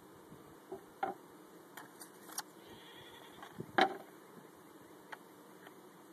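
Several short knocks and clicks as gloved hands pick small items out of an empty hive-top feeder tray and set it up. The loudest knock comes near the end.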